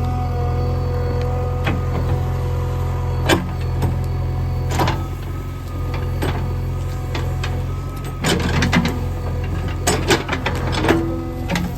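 JCB 3DX backhoe loader's diesel engine running steadily under load, with irregular sharp knocks and clanks from the bucket and arm working, more frequent in the second half.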